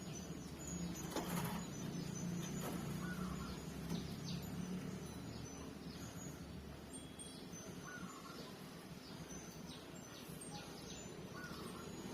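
Outdoor ambience: a steady low hum with a short chirping call that comes back every few seconds, and a few faint clicks.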